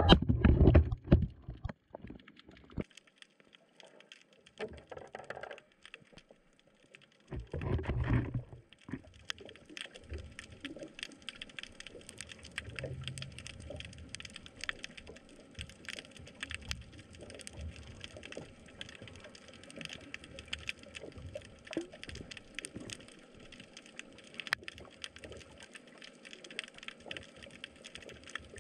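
Underwater sound picked up by a submerged camera: a steady fine crackle of many tiny clicks, with low rushing bumps in the first second or so and again about eight seconds in.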